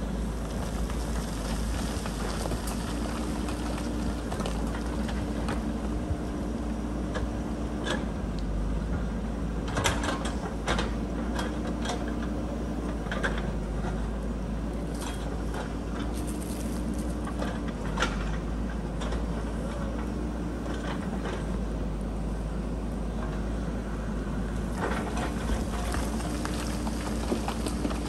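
JCB backhoe loader's diesel engine running steadily, with a hum that swells and fades every second or two. Scattered knocks and clatters of steel on rock, most about ten seconds in and near the end.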